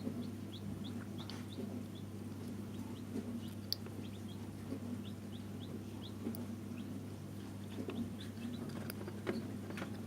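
Newly hatched chicks peeping in an incubator: many short, high peeps that each drop in pitch, scattered irregularly, with a few light taps over a steady low hum.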